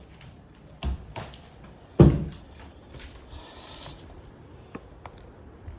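A few sharp knocks and thumps, the loudest about two seconds in, in a small, empty room: the sound of someone moving about inside a derelict house.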